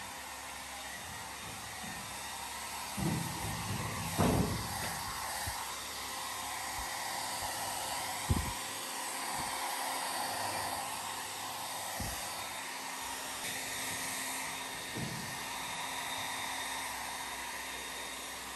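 Small hand-held hair dryer running steadily, blowing close over a baby monkey's fur, with a few dull bumps scattered through.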